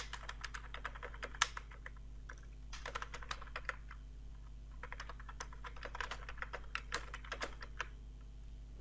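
Typing on a computer keyboard in three bursts of quick keystrokes with short pauses between them, as form fields are filled in.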